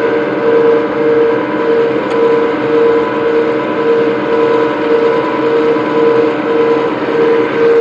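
380-volt electric motors and gearboxes of a brick-making machine's twin-shaft paddle mixer running with the trough empty. It makes a steady hum of several tones, one of which swells and fades about twice a second.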